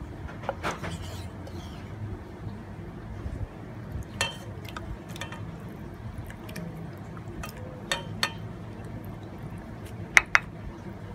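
Wooden spoon knocking and scraping against a stainless-steel pot and a ceramic plate while raw chicken pieces are pushed from the plate into green curry, with scattered short clinks and knocks. Two sharp knocks in quick succession near the end are the loudest.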